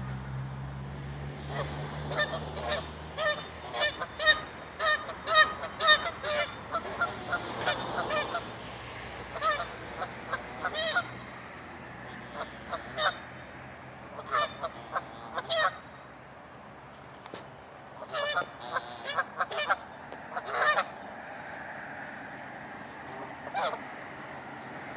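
Geese honking in many short, repeated calls, densest through the first ten seconds, then in scattered clusters with pauses between.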